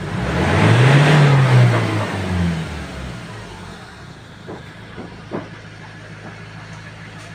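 Ford XLT's engine revved once, rising and falling over about two seconds, then idling steadily; it is running again after a no-start fault blamed on the fuel pump.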